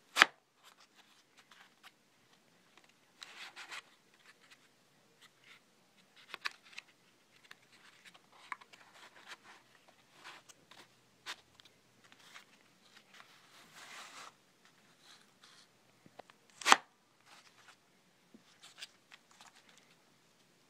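A homemade cardboard, PVC and wood replica submachine gun being handled: cardboard rubbing and scraping with scattered light clicks, and two sharp snaps, one just after the start and one about 17 seconds in.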